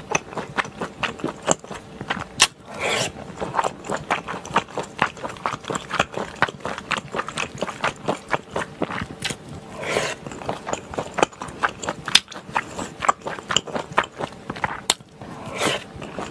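Close-miked chewing and wet mouth sounds from eating spicy stir-fried pork intestines (gopchang) with chewy Chinese glass noodles: rapid, dense smacks and clicks, with three longer, noisier sounds about three, ten and fifteen seconds in.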